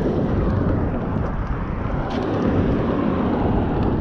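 Wind buffeting an action camera's microphone, a steady rumble with a few faint ticks.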